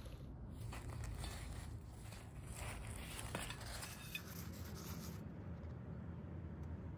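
Crisp fried dough puffs tipped from a metal slotted spoon onto a ceramic plate: scattered light taps and clatters over a soft hiss that stops about five seconds in.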